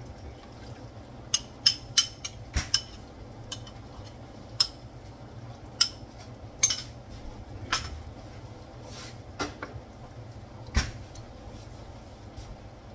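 Cooking utensils clinking and knocking against a stainless steel pan and a glass bowl as sauce is scraped out of the bowl and stirred in the pan: about a dozen sharp, irregularly spaced clinks over a low steady hum.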